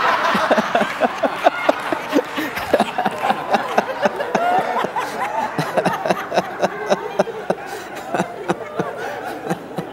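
A congregation laughing at a joke's punchline, many voices overlapping, easing off gradually.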